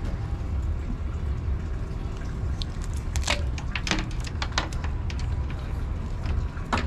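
Steady low rumble with a handful of sharp knocks and clicks, most of them in the second half.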